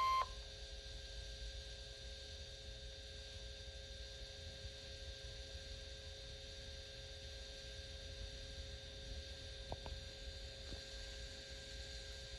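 A steady beeping alert tone from a NOAA Weather Radio broadcast cuts off abruptly at the very start. It leaves dead air on the channel: a low, steady hum with a faint high whine, broken by two faint clicks about ten seconds in.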